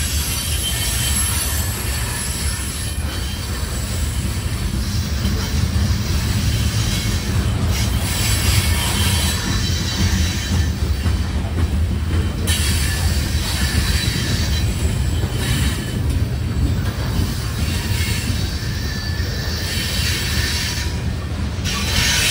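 Freight train's covered hopper cars rolling past with a steady low rumble of wheels on rail, and high-pitched wheel squeal on the curve that comes and goes.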